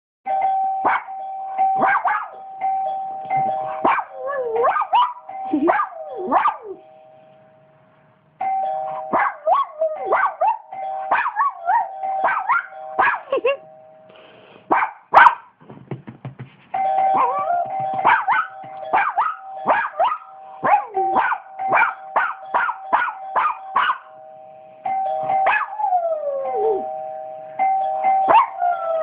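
Doorbell chime holding a steady two-note tone in three long stretches, cutting out briefly twice, with a dog barking rapidly and repeatedly over it.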